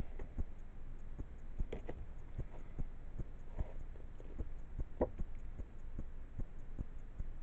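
Faint, irregular light taps and clicks, a little stronger about two seconds and five seconds in, over a low steady hum.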